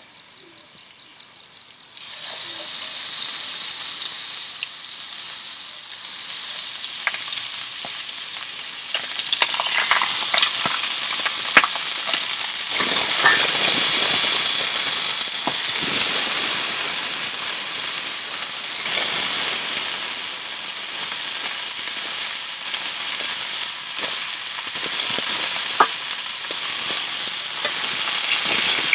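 Sizzling and crackling, as of something frying in a hot pan. It starts suddenly about two seconds in, grows louder toward the middle and keeps going.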